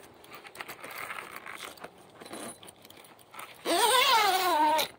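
Rustling and handling noises while the yurt's door is worked open. Near the end comes a loud creak lasting about a second, its pitch jumping up and then sliding slowly down: the door swinging open on its hinges.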